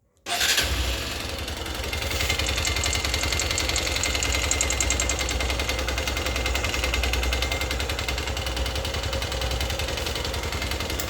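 Honda XR150's single-cylinder four-stroke engine starting, catching almost at once, and running steadily with a rapid knock from the top end. The noise is a sign of damage in the cylinder head after the engine ran short of oil, as the owner reports.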